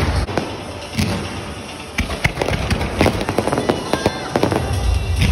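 Fireworks crackling and popping, with many sharp cracks in quick succession that grow denser after about two seconds, and a sharper bang about a second in.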